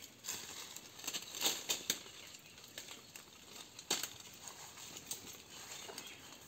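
Dry leaf litter rustling and crackling as it is stirred, with a few sharper snaps, the loudest about four seconds in.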